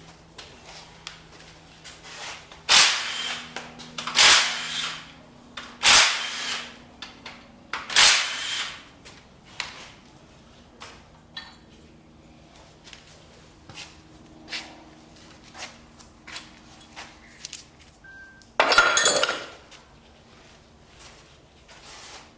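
Metal tool work on a 5.3 LS V8 being torn down: four short, loud, sharp-edged bursts about every one and a half to two seconds, then small clicks and one more burst near the end.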